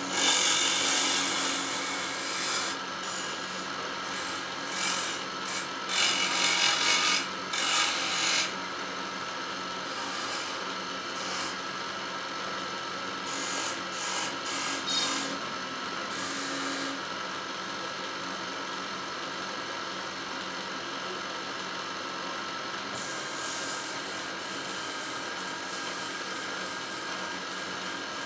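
Hand-held chisel cutting a spinning wooden spindle on a wood lathe: a rasping scrape over the lathe's steady running, in loud uneven bursts for the first eight seconds or so, then steadier and quieter.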